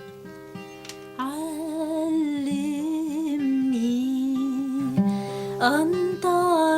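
Acoustic guitar playing a slow hymn introduction. About a second in, a woman's voice comes in humming the melody with a light vibrato, breaks off briefly in the middle and resumes near the end.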